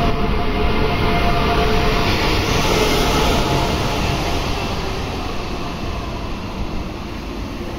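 Renfe Alvia Talgo train rolling past along the platform: a steady rush of running noise with a faint motor whine that fades in the first few seconds, the whole sound slowly getting quieter as the coaches go by.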